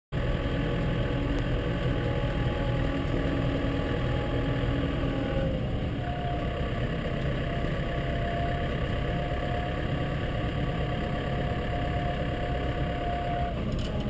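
Snow plough truck's engine running steadily while driving, heard from inside the cab, with a constant low hum. Its engine note steps down slightly about five and a half seconds in.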